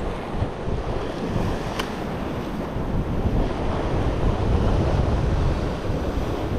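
Wind buffeting the microphone over ocean surf washing and breaking against the rocks below.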